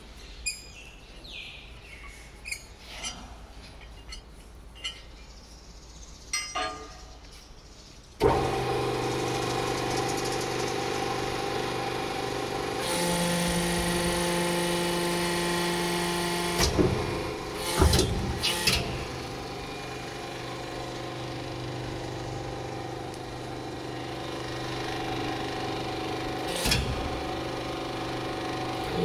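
Light metal clinks and taps of a steel extrusion die being handled, then about eight seconds in the hydraulic power unit of a die-dismantling machine starts suddenly and runs with a steady motor-and-pump hum. Midway the pump takes on a heavier note under load for about four seconds, followed by a few metallic knocks as the clamps close on the die, and one more knock near the end.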